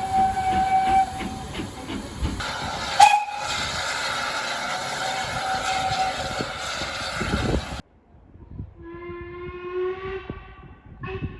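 Steam locomotive whistles over steady hissing steam: a whistle sounds briefly at the start, a sharp loud burst comes about three seconds in, and a fainter whistle follows later. After an abrupt change near eight seconds, a lower, deeper whistle is held for about two seconds.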